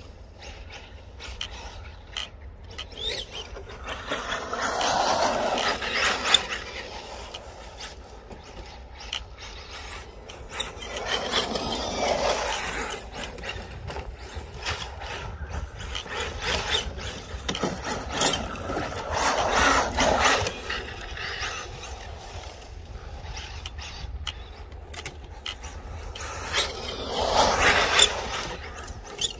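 Electric 1/7-scale rally RC car on 6S battery power drifting on a loose dirt path: its tyres scrabble and slide on the grit over a rattling drivetrain. The sound swells louder four times, about every seven seconds.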